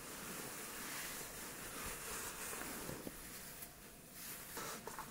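Faint rustling of a knit beanie and winter jacket as the hat is pulled on and adjusted, over a steady low hiss.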